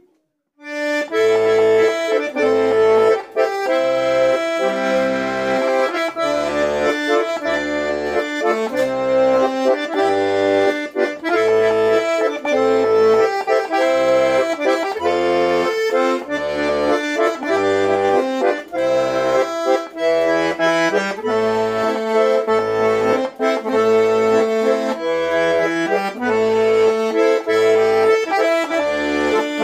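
Tula garmon (Russian button accordion) playing a lively folk melody with the right hand over a steady bass-and-chord beat from the left, about two beats a second. The playing starts about a second in.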